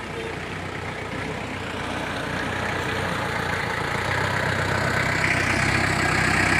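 Old Willys-style jeep's engine running at low speed on a muddy track, growing steadily louder as the jeep comes up close.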